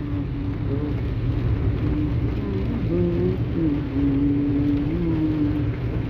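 Rain falling, under a steady low rumble. A faint wavering pitched sound rises and falls over it, holding one note for about a second and a half near the end.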